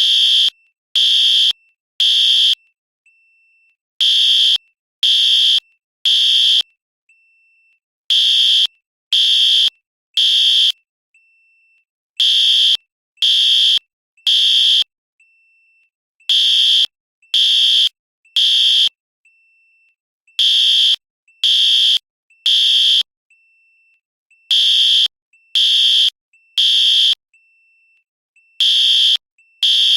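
Fire alarm sounding the temporal-three evacuation pattern: three loud, high-pitched half-second blasts, then a pause, repeating about every four seconds. A faint short beep sounds between the groups.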